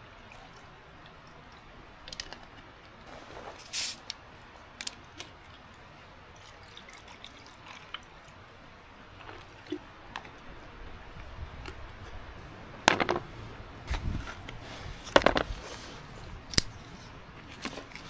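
Bourbon poured from a glass bottle into a collapsible camp mug, with small drips and clinks. Near the end come a few sharp knocks as the bottle, the mug's lid and a plate are set down on a wooden stump; these knocks are the loudest sounds.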